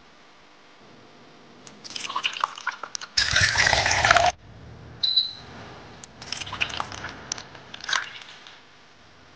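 Handling noises: scattered clicks and rustling, a loud noisy burst lasting about a second, a short high beep, then more clicking and rustling.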